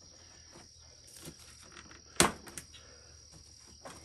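Plastic motorcycle fairing being pried loose from its clips: one sharp snap about two seconds in, with a few lighter clicks around it. Crickets chirp steadily in the background.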